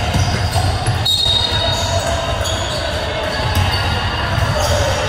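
Basketball game play: a ball bouncing on the court, with several short high squeaks.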